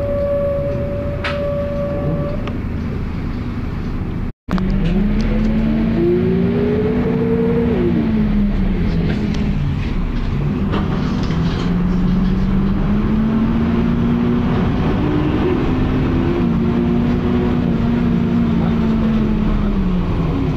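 Volvo B10BLE single-decker bus heard from on board, its diesel engine and transmission whining in pitch that rises and falls several times as it accelerates and changes gear. A steady high whine stops about two seconds in, and the sound cuts out completely for an instant a little after four seconds.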